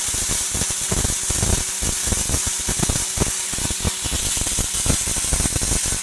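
Gas-shielded (MIG/MAG) welding arc from a Lorch S5 power source in its SpeedPulse XT pulsed mode: a steady hiss with a fast, irregular crackle.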